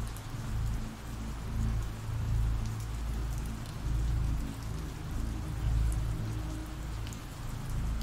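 Steady rain sound effect, an even patter of falling rain, with a low rumble underneath that swells and fades every second or so.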